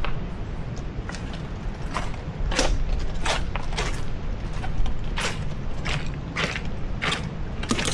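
Walking footsteps crunching over beach rocks at a steady pace, a step about every two-thirds of a second. Wind rumbles on the microphone throughout.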